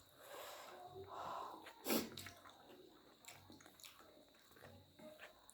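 Quiet eating sounds of people eating chowmein noodles: soft chewing and slurping with small scattered clicks, and one sharper, louder noise about two seconds in.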